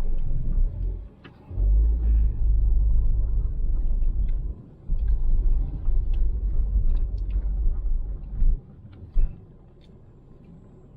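Car jolting along a rough, potholed road: heavy low rumble in long stretches, with knocks and rattles from the car, easing off about two seconds before the end apart from one sharp knock.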